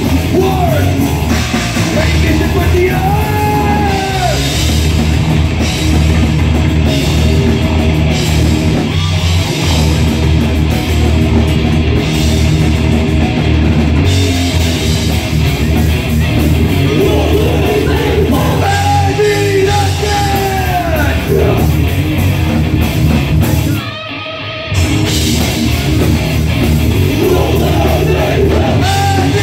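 Live rock band playing loud: electric guitars and a drum kit with sung vocals. The band stops for about a second near the three-quarter mark, then comes back in.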